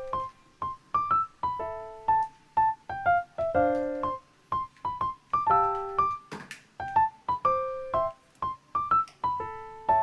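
Background piano music: a light melody of single notes with some short chords. A brief noise sounds once about six seconds in.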